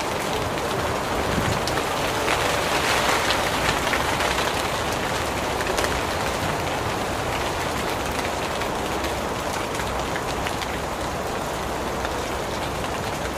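Heavy rain falling steadily on waterlogged ground, a dense hiss of countless drops with fine patters, swelling slightly a few seconds in.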